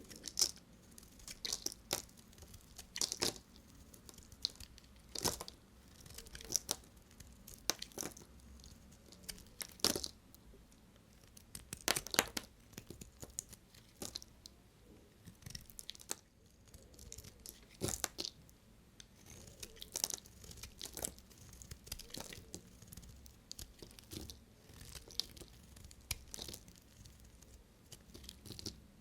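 A knife cutting through bars of dry soap: a string of sharp crunching cracks, one every second or two, some louder than others.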